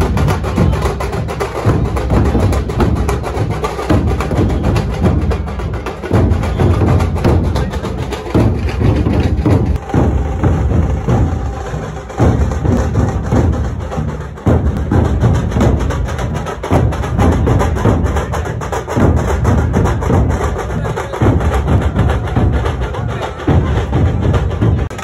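Loud drum-led music with repeated hard drum strikes and heavy bass.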